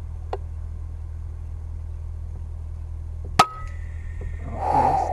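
Single air rifle shot about three and a half seconds in, a sharp crack with a brief ring after it, over the steady low hum of an idling engine. A short rushing noise follows near the end.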